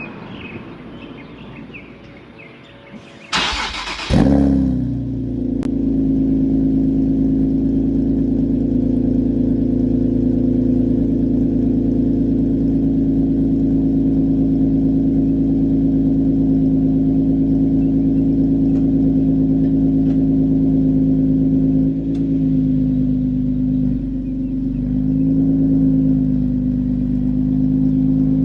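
Nissan 370Z's 3.7-litre V6 with aftermarket PPE headers being started: about a second of starter cranking, then the engine catches with a brief rev flare and settles into a steady idle. The idle dips briefly and shifts in pitch near the end.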